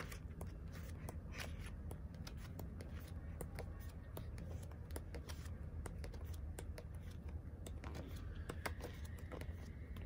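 Pages of a thick, glossy photo book being turned by hand: many short paper flicks and rustles, over a low steady hum.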